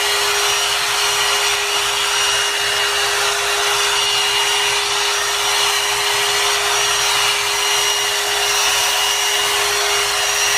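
Blow-dryer brush (hot air brush) running steadily on its low-temperature setting: a steady rush of air over a constant motor hum.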